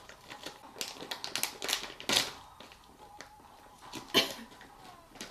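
Plastic snack bag crinkling as it is handled and pulled open: a run of sharp crackles, a louder burst about two seconds in, and the loudest sharp crackle a little after four seconds.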